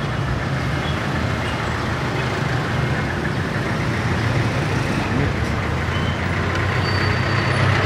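Street traffic: a steady rumble and hiss of passing road vehicles, with a low engine hum growing louder near the end.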